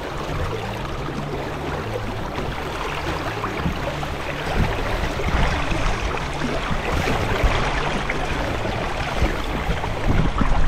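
River current rushing and lapping around the wading angler, with wind buffeting the microphone; the gusts grow stronger about halfway through.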